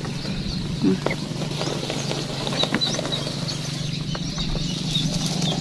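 Rustling and light steps through dry grass and brush, with scattered faint clicks, over a steady low hum and a few faint high chirps.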